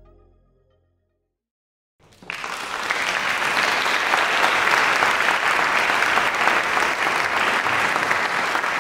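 The last notes of background music fade out, and after a second of silence an audience breaks into steady applause about two seconds in.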